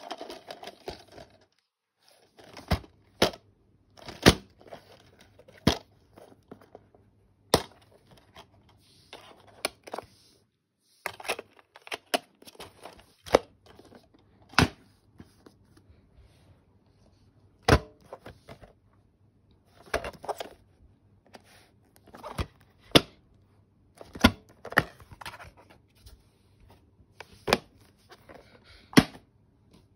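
Plastic DVD and Blu-ray cases being handled and shuffled. There are irregular sharp clicks and taps as the cases knock together and are set down, with short rustling and scraping as they slide.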